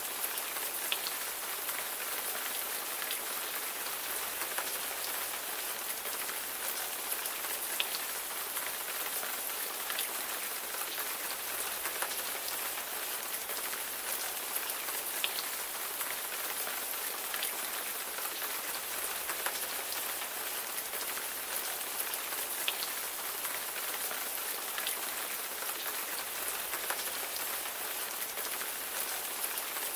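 Steady rain falling, a continuous hiss with scattered individual raindrops ticking sharply on a surface now and then.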